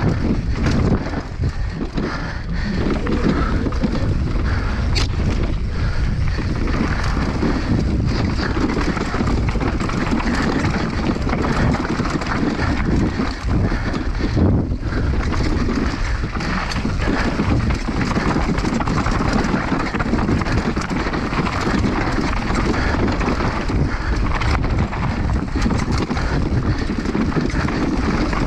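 Wind rushing over the microphone of a downhill mountain bike at speed, with the bike's constant rattling and knocking over rough trail.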